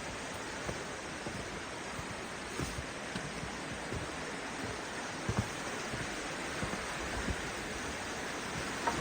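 Steady rushing of creek water, with a few short, soft knocks, the loudest about five seconds in.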